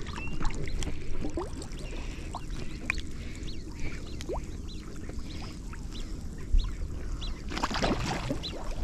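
Black-bellied whistling ducks (pichiches) calling: many short, high whistled chirps scattered throughout, over a low steady background, with a brief rush of noise near the end.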